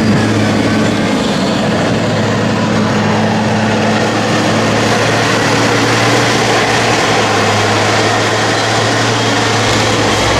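A large diesel engine on farm machinery running steadily at a constant speed, under a loud, even rush of working noise.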